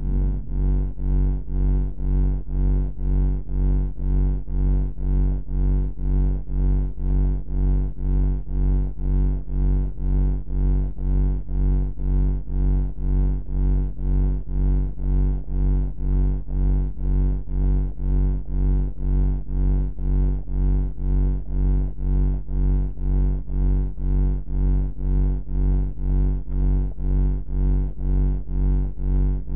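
Deep ambient bunker hum: a low, steady drone with stacked overtones that throbs evenly about one and a half times a second.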